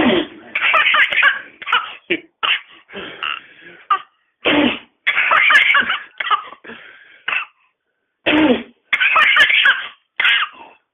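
Baby girl laughing in short, repeated outbursts, broken by coughs, with a pause of about a second about two-thirds of the way through.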